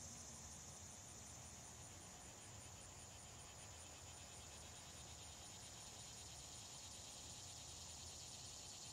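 Crickets chirping: a steady high trill with a faint, evenly repeating chirp a few times a second.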